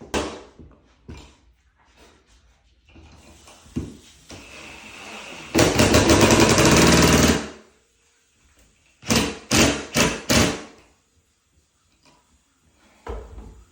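Hand-tool and power-tool work on a ceiling fan. There is a sharp knock and some small clunks, then a loud rattling whir about two seconds long in the middle, then four short loud bursts in quick succession and one more near the end.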